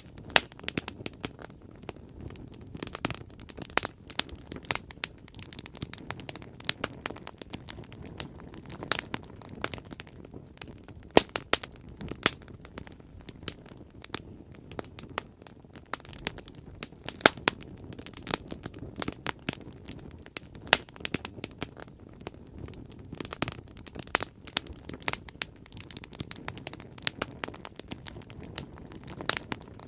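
Bonfire burning: a low steady rush of flame with irregular sharp crackles and pops of burning wood, a few louder snaps among them.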